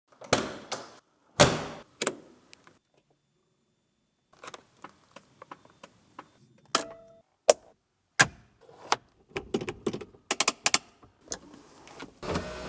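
Two heavy thumps, a smaller third one, then an irregular run of sharp clicks and knocks from car handling: doors, keys and controls. Near the end a steady electric motor whine begins.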